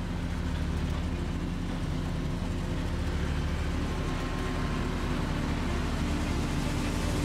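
Diesel engine of an M809-series 5-ton 6x6 military truck (a Cummins inline six) running at a steady speed, an even low drone.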